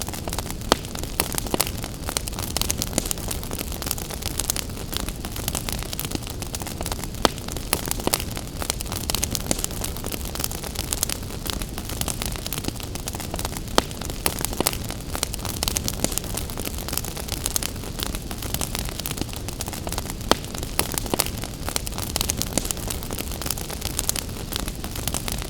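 Wood fire in a fireplace crackling, with frequent irregular sharp pops and snaps over a steady rushing hiss of gentle rain.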